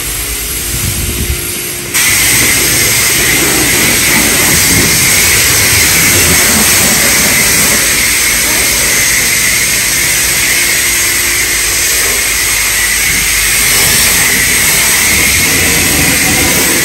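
High-pressure car wash wand spraying water at a car, starting abruptly about two seconds in and then running as a steady, loud hiss.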